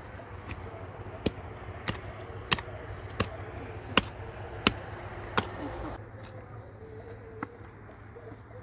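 Hand mattock striking stony soil over and over in an even rhythm, about one sharp knock every two-thirds of a second. The strikes stop after about five and a half seconds, with one more knock near the end.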